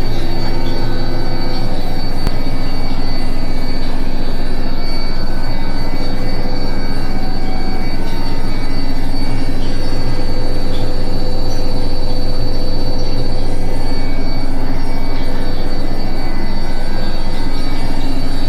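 Indesit washing machine on its final spin: the drum runs steadily at speed with a low hum, and a steady high-pitched squeak sounds over it.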